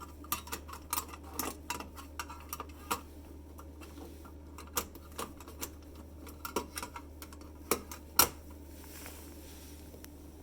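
Irregular clicks, taps and knocks of hard parts being handled, loudest about eight seconds in, over a low steady hum.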